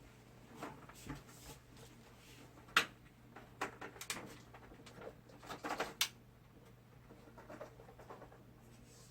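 Scattered clicks and knocks of objects being handled, two sharper knocks about a third and two-thirds of the way through, over a faint steady hum.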